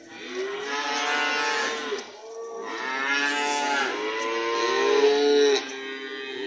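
Cattle mooing: long drawn-out calls one after another, each rising and then falling in pitch. The loudest comes about five seconds in.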